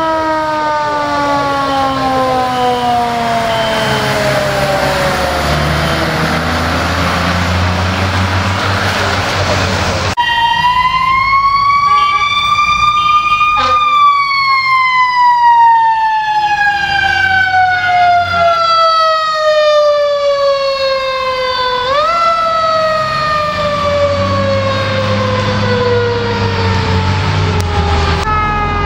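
Fire engine's mechanical Q siren winding down in long, slow falling wails; about ten seconds in it spins up over a few seconds, coasts down again, and near the end is given a quick jump in pitch before falling once more. A low engine rumble sits beneath it at times.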